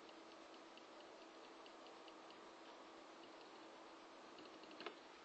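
Faint light ticks of fingertips tapping a small piezoelectric transducer disc, in short flurries, with one louder click near the end. A faint steady hum lies underneath.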